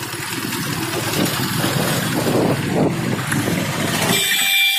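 Riding noise on a Suzuki GS150R motorcycle: its single-cylinder engine running under wind buffeting the microphone. Near the end a brief steady high-pitched tone sounds as the rumble drops.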